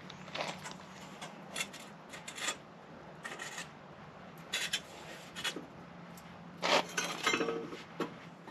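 Intermittent clinks, rattles and scrapes of small hard metal parts and tools being handled, with a busier burst of rattling near the end. A faint steady low hum runs underneath.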